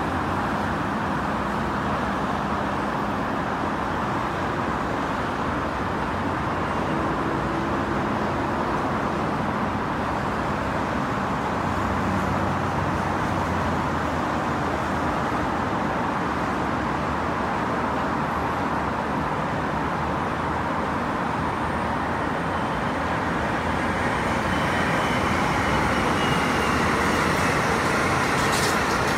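Steady road traffic noise from a busy multi-lane highway: a continuous wash of tyre and engine noise from many cars, growing a little louder near the end.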